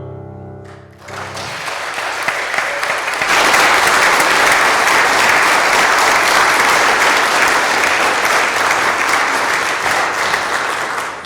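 The last held note of the music dies away, and a congregation breaks into applause about a second in. The clapping swells a couple of seconds later, holds steady and tails off near the end.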